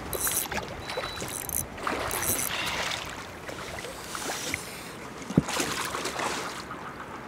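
Water sloshing against the side of a small fishing boat, with wind, three short high buzzes in the first two and a half seconds, and a sharp knock against the boat about five and a half seconds in.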